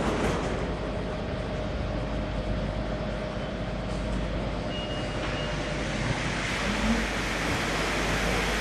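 Rubber-tyred Mexico City Metro train pulling out of the platform: a steady rumble and hum from the train, with a faint motor whine starting to rise near the end as it picks up speed.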